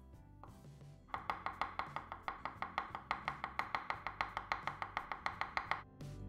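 Chef's knife chopping hard-boiled eggs on a wooden cutting board: rapid, even strokes about six a second, starting about a second in and stopping shortly before the end. Background music plays underneath.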